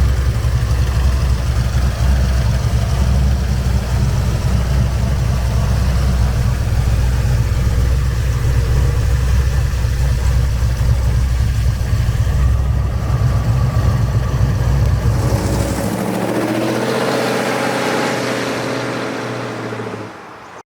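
1969 Chevy Nova's 396 big-block V8, with headers and dual exhaust, idling steadily with a deep low rumble. About three-quarters of the way through, the low rumble stops and a fainter, higher sound fades out.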